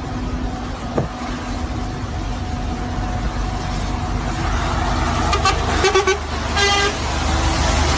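Steady engine and tyre-on-wet-road drone heard inside a truck cab, with a vehicle horn sounding in two blasts, about five and a half seconds in and again about a second later.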